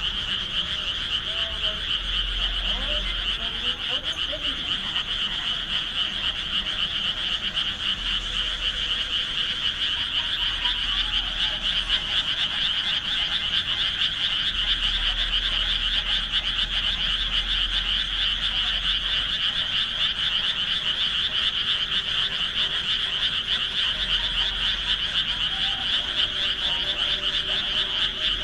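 Dense chorus of many frogs calling together without a break, a steady, high-pitched wall of croaking.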